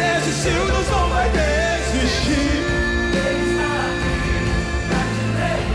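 Live Brazilian gospel band playing a worship song, with a singer's voice bending and holding long drawn-out notes over held keyboard chords and a steady bass.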